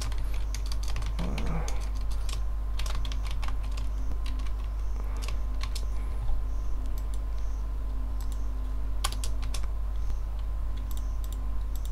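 Computer keyboard typing: irregular keystrokes, some in quick runs, over a steady low hum.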